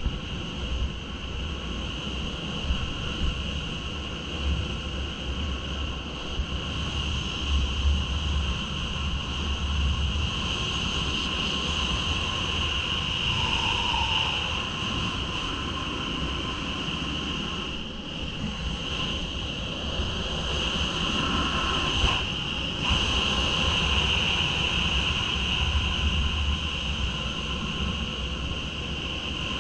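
Wind rushing steadily over a head-mounted action camera's microphone during a fast speedriding descent on skis, with an uneven low buffeting rumble.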